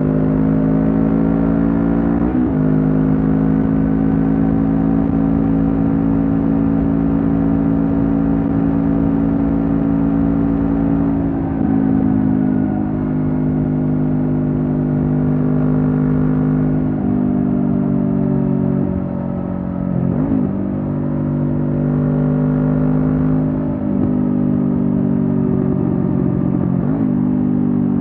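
Honda CB500F's parallel-twin engine running through a Mivv GP Pro stainless slip-on exhaust while riding. The engine note holds a mostly steady pitch, broken by a handful of short dips and steps in pitch as the throttle changes.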